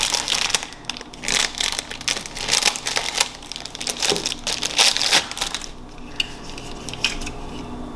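Crinkly packaging being crumpled and pulled open by hand to unwrap a fidget toy, in dense crackles for about six seconds, then softer and sparser near the end.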